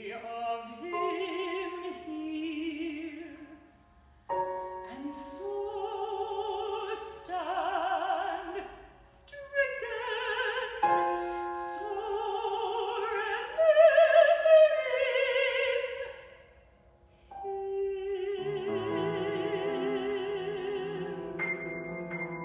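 Mezzo-soprano singing a classical art song with a wide vibrato over grand piano accompaniment. The voice breaks off briefly twice, and the piano comes forward near the end.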